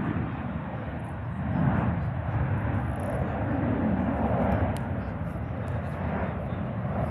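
Embraer C-390's twin turbofan engines rumbling as the jet passes in a flying display, the sound swelling and easing, loudest about four seconds in.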